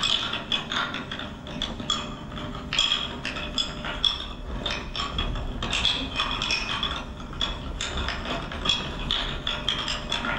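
Wooden bobbin-lace bobbins clacking against one another in a dense, irregular patter of light clicks as lace is worked on lace pillows.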